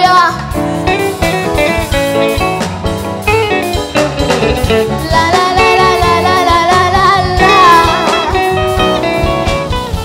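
Live gospel song: a girl's lead vocal with backing singers over band accompaniment with a steady drum beat.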